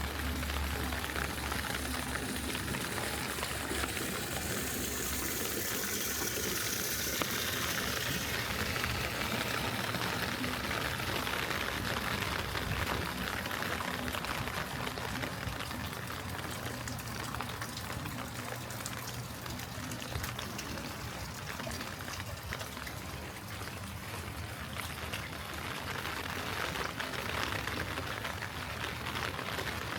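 Steady rain falling, an even wash of water noise with fine drops throughout.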